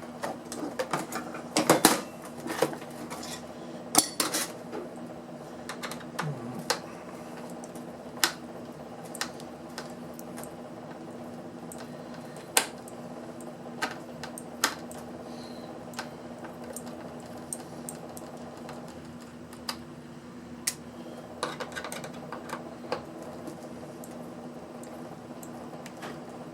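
Hand tools and loose plastic and metal parts clicking and clattering as a portable power pack is taken apart, with a burst of clatter about two seconds in. A steady hum runs underneath.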